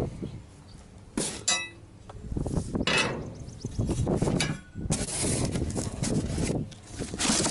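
Metal parts of a lawn aerator kit clanking as they are handled and unpacked. One clink about a second in rings on briefly, with knocks and rustling around it.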